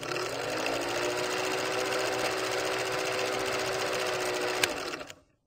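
Vintage film projector sound effect: a rapid mechanical clatter over a steady motor hum that rises briefly at the start as it comes up to speed. One sharp click about four and a half seconds in, and the sound stops shortly before the end.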